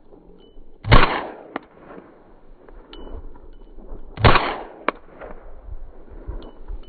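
Two loud gunshots about three and a half seconds apart, each followed about half a second later by a fainter sharp crack.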